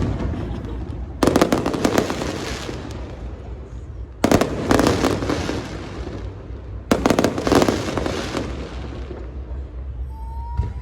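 Aerial fireworks bursting overhead: three volleys of rapid crackling bangs about three seconds apart, each dying away, over a low rumble. A short rising whistle comes near the end.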